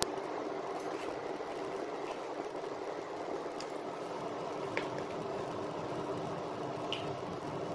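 Kitchen fan running with a steady whir and a constant low hum, with a few faint ticks.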